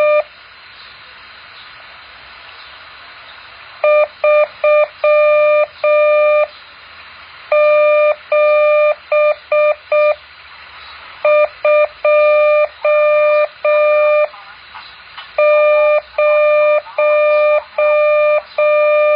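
Morse code practice tone: a single steady-pitched beep keyed on and off into dots and dashes, sent as groups of characters with pauses of about a second between groups, over a faint hiss.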